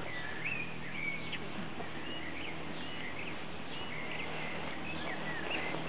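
Small bird chirping: many short, thin chirps in quick succession, each bending up and down in pitch.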